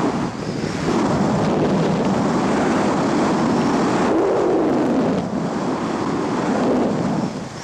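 Wind buffeting a microphone: a steady rushing noise that swells and eases, dipping a little just before the end.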